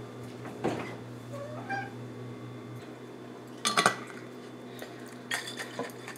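A domestic cat gives a short meow about a second and a half in, amid a few sharp knocks and clinks as glass bottles are handled, the loudest about four seconds in.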